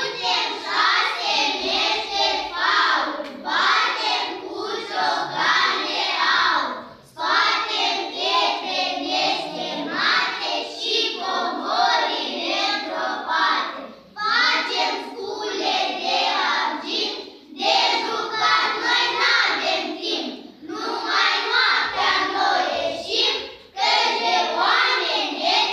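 A group of children singing a song together in unison, without instrumental accompaniment, in phrases of a few seconds each with brief breaks between them.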